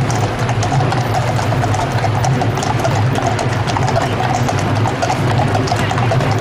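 Shod hooves of several police horses clip-clopping on a tarmac road at a walk, a quick irregular patter of clicks, over a steady low engine hum from traffic.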